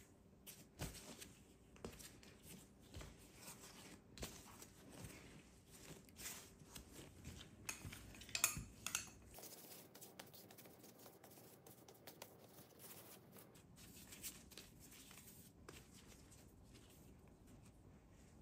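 Faint clicks and taps of kitchen utensils and dishes being handled, scattered through, with a quick run of louder clicks about eight seconds in.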